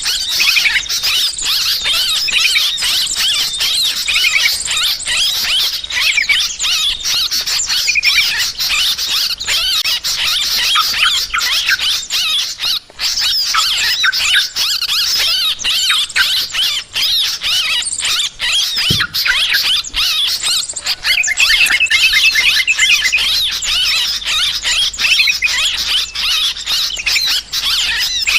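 A flock of yellow-vented bulbuls (trucukan) calling in dense, overlapping, agitated chatter with no break: the 'ribut' excited calling played as a bird-trapping lure.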